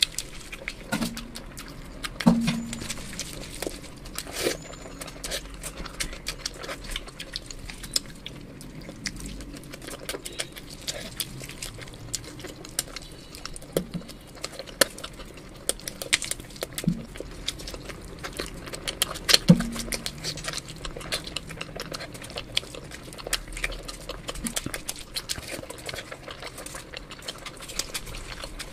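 Close-miked eating with the hands: wet chewing and lip smacks while sticky fingers tear roast chicken and squish curry-soaked rice. It is a dense, irregular run of small clicks and squelches, with a few louder short low sounds.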